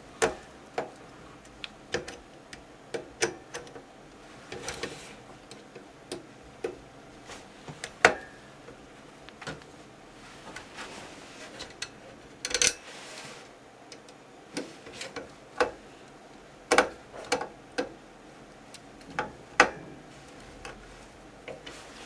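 Irregular sharp clicks and taps of a screwdriver driving long screws through a small plastic computer cooling fan into a metal heatsink, with a couple of short scrapes.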